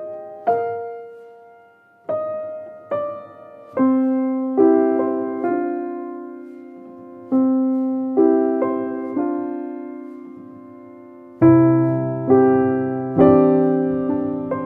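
Background piano music: slow, sparse single notes and chords, each dying away after it is struck, growing fuller with lower chords near the end.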